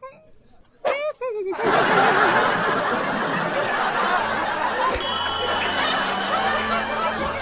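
A large studio audience breaks into loud, sustained laughter about a second and a half in, after a near-quiet start.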